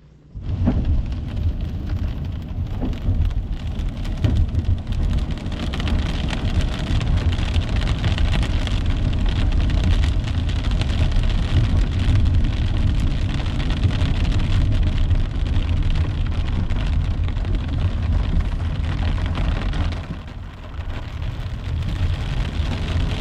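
Steady rain and car road rumble in heavy rain, starting suddenly about half a second in and holding steady, with a slight dip near the end.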